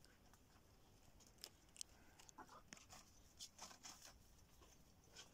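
Faint, scattered crunches and crackles of rabbits nibbling and tearing at pieces of bread, a few sharp clicks at a time.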